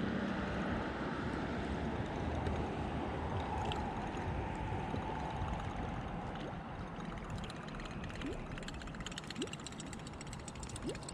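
Water gurgling and sloshing along the hull of a bass boat moving slowly through calm water. Fine light ticking joins in over the last few seconds.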